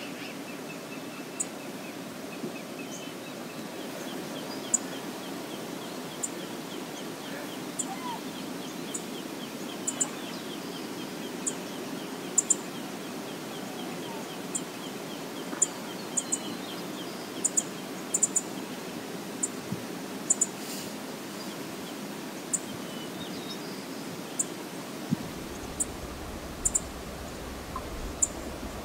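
Steady rush of flowing river water, with short, high bird chirps scattered throughout and a rapid bird trill lasting about ten seconds that starts a few seconds in. A low rumble joins near the end.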